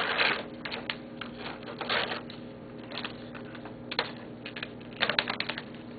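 Pieces of tape being peeled off a player-piano stack: short crackling rips and small clicks, one longer rip at the start and another about two seconds in, with a quick cluster near the end.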